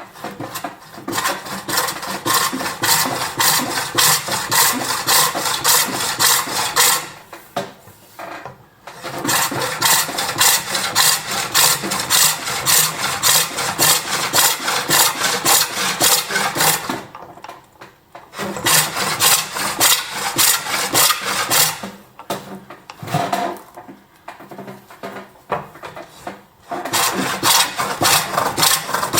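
Bent coring tool cutting into a green-wood bowl spinning on a pole lathe: an even rhythm of quick rasping cuts in runs of several seconds, stopping briefly twice as the cut is paused.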